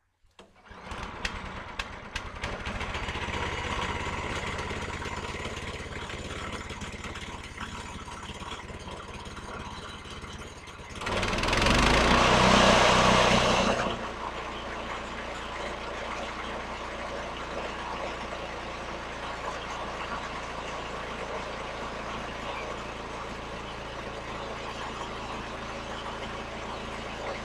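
Portable sawmill's pull-start gasoline engine catching and starting, then running steadily. About eleven seconds in it runs much louder and higher for about three seconds, then settles back to a steady idle.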